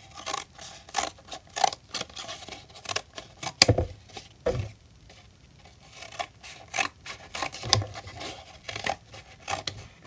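Scissors cutting through a folded, silver-lined rice milk carton: a run of irregular snips with the stiff material rustling as it is handled. The sharpest snip comes about three and a half seconds in.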